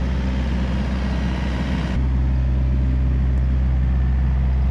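Volvo EC35C mini excavator's diesel engine running steadily with the hydraulics working as the upper house swings. The sound dips and shifts briefly about two seconds in.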